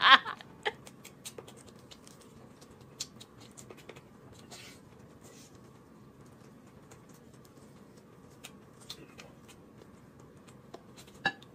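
Soft, scattered wet clicks and smacks of someone eating a braised chicken leg by hand, chewing and pulling meat from the bone, with a sharper click near the end.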